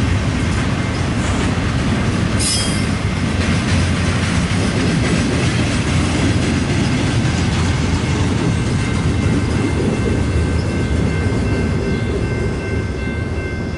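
Double-stack intermodal freight train's well cars rolling past at track speed: a steady, loud rumble of steel wheels on rail. A thin, high, steady tone joins in during the second half, and the rumble fades near the end as the last car goes by.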